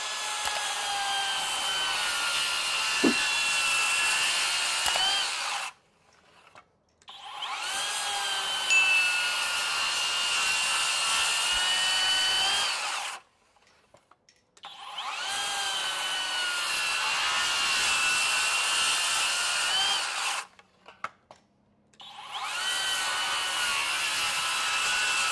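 Skilsaw TRUEHVL cordless worm-drive circular saw ripping lengthwise through a pressure-treated 4x6 in four cuts in a row. Each cut starts with a rising whine as the blade spins up, then holds a steady high whine without bogging down under load. The pitch lifts briefly just before each cut stops abruptly.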